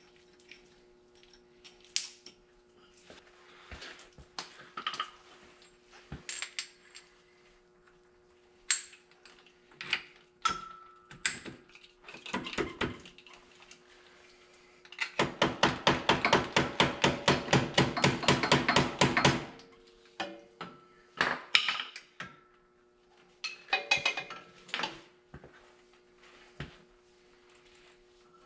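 Hand tools clinking and tapping on the tractor's steel hitch parts and hydraulic fittings during a kit installation. About halfway through, a ratchet wrench clicks rapidly and evenly for about four seconds. A faint steady hum runs underneath.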